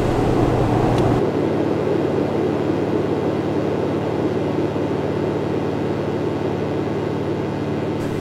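Steady road and wind noise from inside a moving vehicle. About a second in, the sound abruptly loses some of its low rumble and top hiss, and it changes again near the end.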